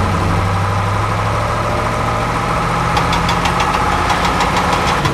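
An engine running at idle with a steady low hum. About three seconds in, a rapid knocking clatter of about five clicks a second joins it.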